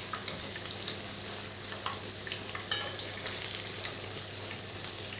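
Yeast-dough pişi deep-frying in hot oil in a pan: a steady sizzle with small scattered crackles, and a faint steady low hum underneath.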